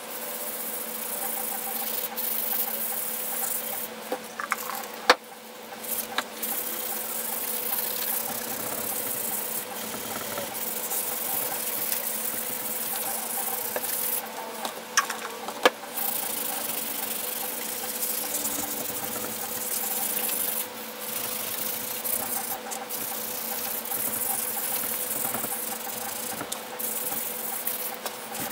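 Abrasive scouring pad scrubbing the metal housing of a vintage Porter-Cable BB10 belt sander: a continuous rasping hiss that breaks off briefly between strokes, with a few sharp clicks. A steady low hum runs underneath.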